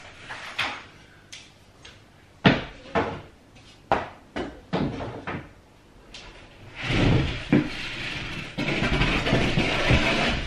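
Flat-pack wardrobe panels of white chipboard knocking and clattering against one another as they are handled, a series of separate sharp knocks. From about seven seconds in comes a longer, louder scraping as a tall panel is tilted and slid out.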